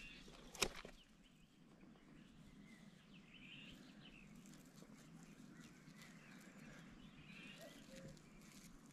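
Quiet outdoor ambience with faint bird chirps now and then, after a single sharp click about half a second in.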